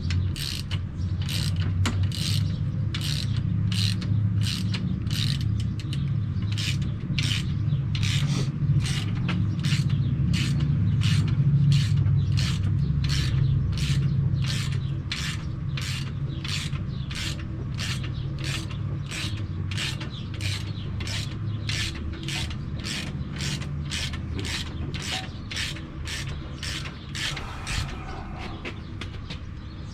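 Scissor jack being cranked with a ratchet: even ratchet clicks about one and a half a second, stopping near the end, over a steady low hum. The jack is forcing the ram out of an outboard's power trim cylinder.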